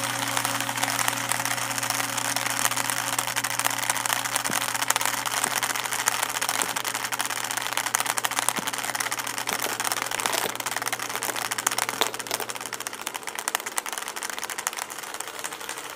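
Fast, continuous clatter of smartphones toppling one onto the next in a long domino chain. A steady low hum runs underneath and stops about three-quarters of the way through.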